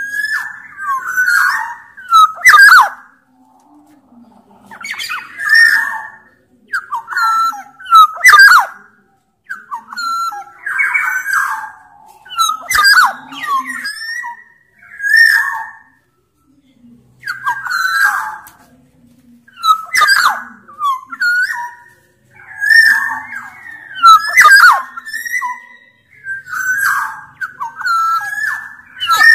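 Black-naped oriole (kepodang) singing: loud, repeated short phrases of fluty whistled notes mixed with harsh, sharp notes, a new phrase coming about every one to two seconds.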